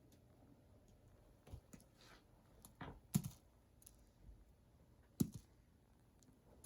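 Scattered light taps and clicks of small objects being handled, faint, with the two sharpest knocks about three seconds in and about five seconds in.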